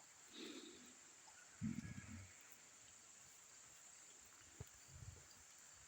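Faint, steady chorus of insects, with soft low thumps about half a second and two seconds in.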